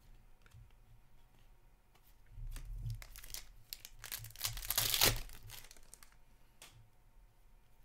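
Foil wrapper of a hockey card pack crinkling and being torn open by hand, loudest about four to five seconds in, with a few small card-handling clicks around it.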